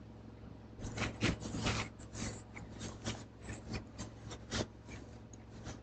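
A quiet, irregular run of short scratchy clicks and rubs close to the microphone, about four or five a second, starting about a second in and stopping shortly before the end.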